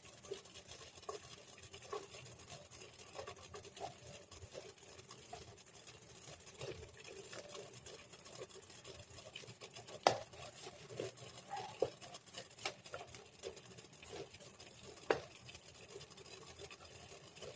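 Wooden chopsticks tapping and scraping against the bottom of a pot while mochi is rolled through loose kinako: soft, irregular taps and rubbing, with two sharper knocks about ten and fifteen seconds in.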